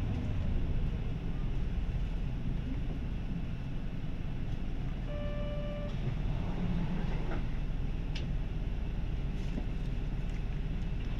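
Isuzu 2DG-LV290N3 city bus running, heard from inside the cabin: its 4HK1 four-cylinder turbodiesel and road noise make a steady low rumble. About five seconds in, an electronic beep sounds for about a second. A faint steady hum follows from about eight seconds on.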